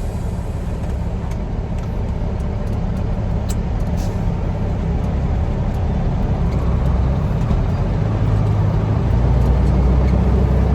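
Semi truck's diesel engine running, heard from inside the cab, with a low rumble that slowly grows louder and steps up about nine seconds in as the truck pulls harder.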